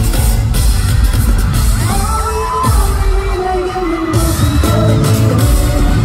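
K-pop song performed live over a concert sound system, with a heavy bass beat and a male group's sung vocal line.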